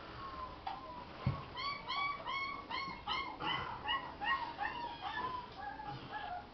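Alaskan malamute puppy whimpering: a faint drawn-out whine, then a quick run of short, arched yips about three a second. A soft thump comes just before the yips start.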